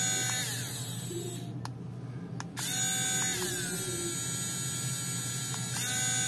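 Cordless mini grinder (rotary tool) running free with a small grinding stone fitted, its motor whine changing pitch as it is switched through its three speeds. The whine falls just after the start, cuts out briefly about two seconds in, restarts and settles to a lower pitch, then climbs again near the end.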